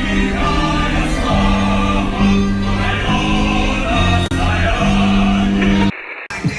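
Background music: a song with singing over held chords that change about once a second. It cuts out briefly near the end.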